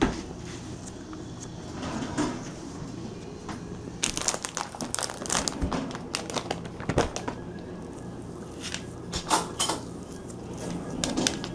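Handling noises: crinkling with scattered small clicks and knocks, quiet for the first few seconds, then busy from about four seconds in.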